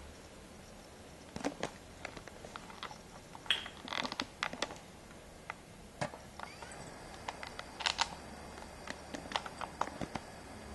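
Scattered, irregular clicks and light knocks, several in quick clusters, over a faint steady low hum.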